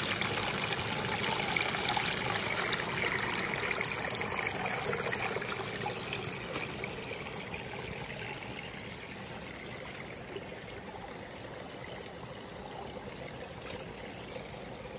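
Shallow stream water running and trickling over rocks, a steady rushing that is loudest in the first few seconds and eases off gradually.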